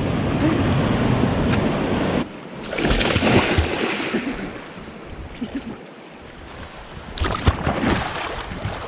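River water rushing and splashing with wind noise on the microphone. The sound changes abruptly about two seconds in and again near seven seconds, settling into quieter water with scattered small splashes.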